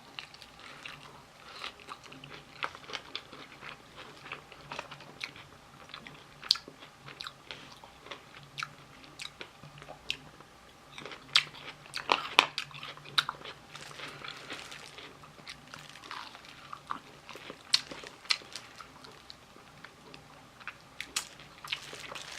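Close-up biting and chewing of Korean fried chicken: the crisp fried coating crackles and crunches in many irregular sharp bites, with a denser run of crunching about halfway through.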